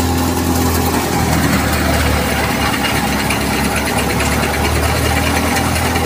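Tractor-driven wheat thresher running: the tractor's engine hums steadily under load beneath the even noise of the threshing machine and blowing chaff.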